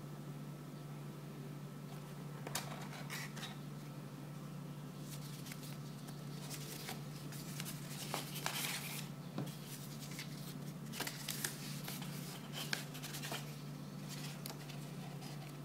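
Paper booklets and box packaging being handled: irregular rustling and sharp little clicks that come and go, over a steady low hum.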